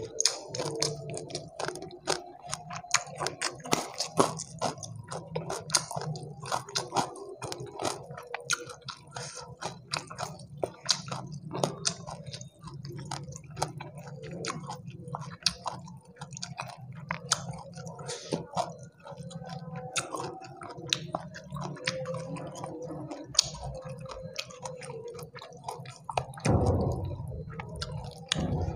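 Close-miked chewing of fried chicken and rice with chilli sambal, full of wet mouth clicks and smacks, with fingers squishing and tearing at the chicken. A louder dull bump comes near the end.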